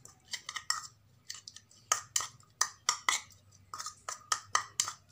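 A spoon clinking against a small bowl in a quick, irregular run of taps, about three or four a second, while mixing grated turmeric and a little warm water into a thick paste.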